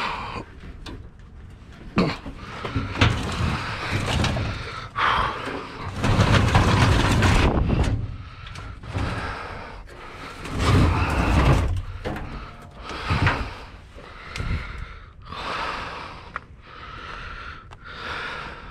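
Irregular knocks, bangs and longer scraping or rustling noises of objects being moved and handled, with a few sharp impacts and two longer loud stretches.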